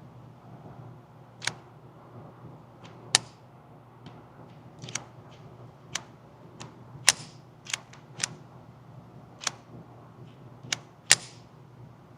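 Gunshots at a shooting range: about a dozen sharp cracks at irregular intervals, a few much louder than the rest.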